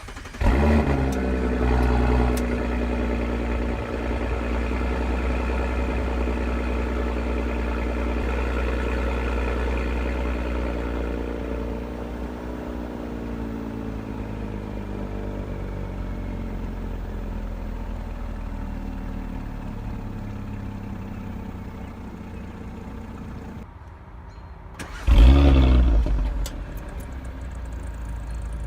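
2018 Audi SQ5's turbocharged 3.0-litre V6 cold-starting. It fires with a loud flare and settles into a fast cold idle whose pitch slowly sinks over about twenty seconds. Near the end a single quick rev rises and falls back to idle.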